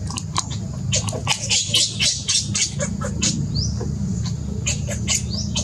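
Rapid high-pitched animal chirps and squeaks, several a second, with a few short rising chirps, over a steady low rumble.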